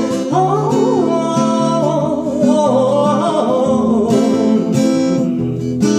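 Acoustic guitar strumming under a woman's voice singing a wordless «o-oo-ou-ou» vocalise that runs for about four seconds, then the guitar carries on alone.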